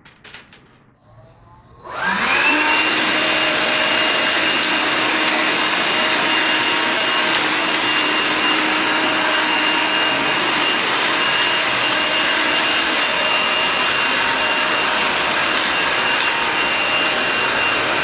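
Cordless battery-powered air blower-cum-vacuum cleaner switched on about two seconds in. Its motor whines up to speed, then runs steadily in vacuum mode while dust and small pebbles tick and rattle as they are sucked up the nozzle into the dust bag.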